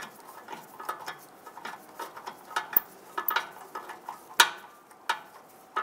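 Ratchet clicking irregularly on a long socket extension as a nut is run onto a catalytic converter flange stud, with a few louder metal clinks.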